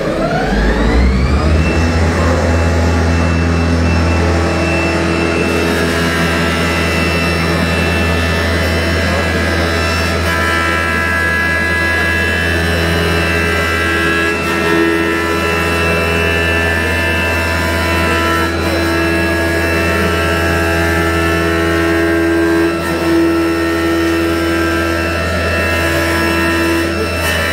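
Schnitzer CNC wood-turning lathe spinning up with a rising whine over the first couple of seconds, then running steadily at speed as it turns a wooden blank.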